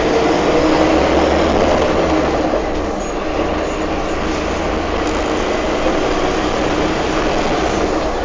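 Scania K310 city bus heard from inside its passenger cabin while driving: a steady engine drone mixed with road noise.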